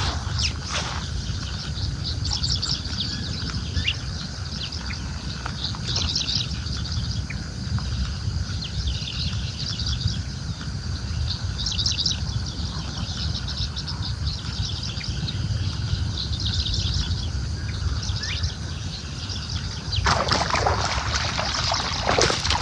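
Wild birds chirping and singing in short bursts over a steady low rumble, with a brief noisy rustle near the end.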